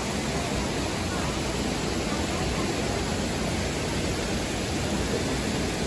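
Steady rushing noise of falling water pouring down a wet, mossy rock face.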